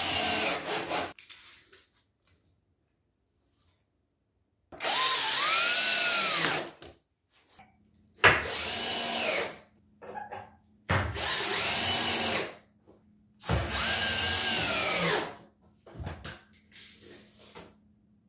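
Cordless drill/driver run in five short bursts into wooden form boards and blocks, each run speeding up and slowing down as the trigger is squeezed and let go, as it drives fasteners to assemble and brace the curb form. Light knocks and handling of the wood come between the runs.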